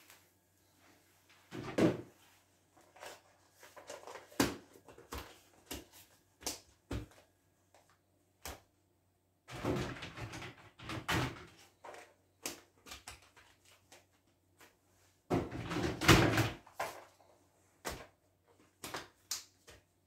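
Plastic food storage tubs and their lids being handled on a kitchen counter: lids pressed on and tubs set down and stacked, in a series of clicks and knocks with louder clattering bursts about 2, 10 and 16 seconds in.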